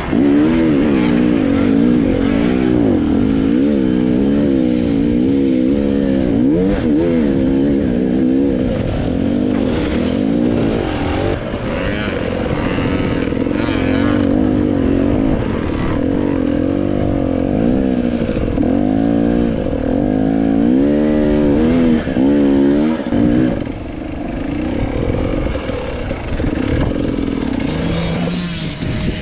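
Dirt bike engines revving up and down hard under load on a steep, rocky hill climb, the pitch rising and falling again and again, easing off near the end.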